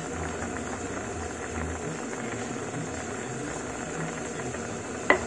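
Squid broth boiling in a wok, a steady bubbling hiss with faint small pops. A single sharp click about five seconds in.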